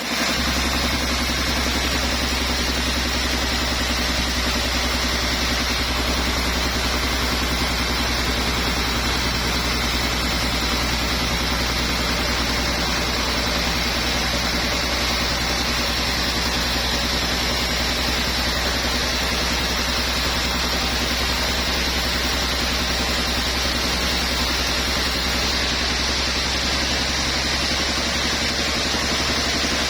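Sawmill machinery running steadily, a constant low hum under a steady high whine, with no clear change in load.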